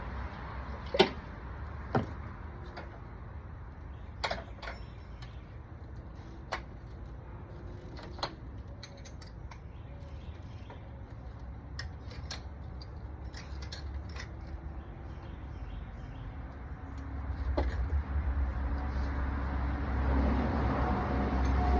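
Scattered clicks and light metallic knocks of ignition coil packs and hand tools being handled at a car engine during a tune-up, over a steady low rumble that grows louder over the last few seconds.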